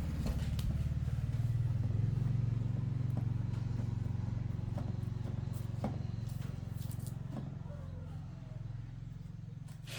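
A steady low motor drone, engine-like, that slowly fades over the last few seconds, with a few light clicks and taps over it.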